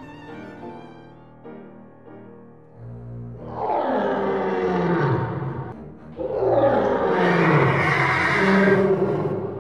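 Soft strings fade out, then two loud animal roars follow, each sliding down in pitch. The second is longer and louder. They serve as the voice of the woolly mammoth.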